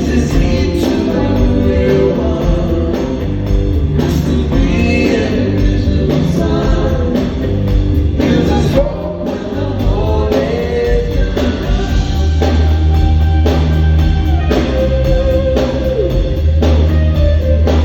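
Live rock band playing over a PA: steady bass, regular drum hits and electric guitar, with a male voice singing.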